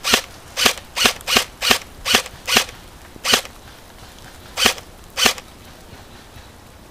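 M4-style airsoft rifle firing single shots: about ten sharp cracks, coming two or three a second at first, then two more spaced out about a second and a half apart, before the firing stops.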